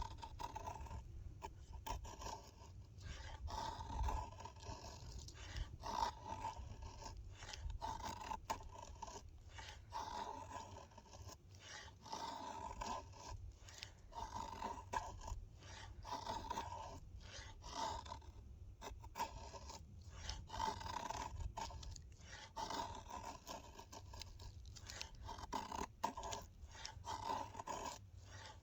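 Folding knife blade shaving thin feather-stick curls off a piece of pine, in repeated scraping strokes about one a second.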